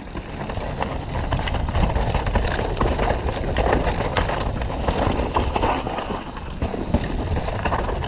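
Mountain bike riding fast down a rough trail: tyres rumbling over dirt and rocks while the bike rattles, with many sharp knocks all the way through.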